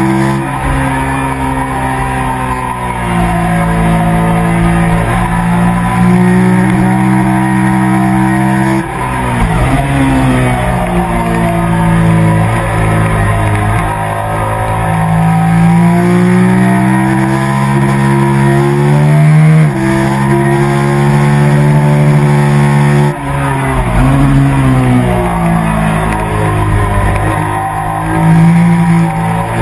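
Sport bike engine pulling hard at high revs, heard from on board over wind rush. The pitch climbs steadily under acceleration and falls sharply several times at gear changes and braking.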